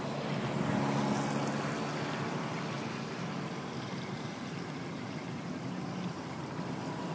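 Floodwater draining into a kerbside storm drain: a steady rushing water noise. A vehicle engine hums underneath during the first few seconds.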